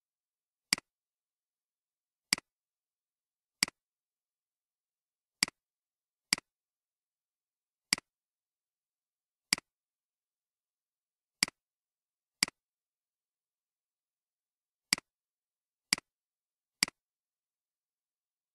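Computer mouse clicking: about a dozen single clicks at irregular intervals, each a sharp press followed closely by a softer release, with dead silence between.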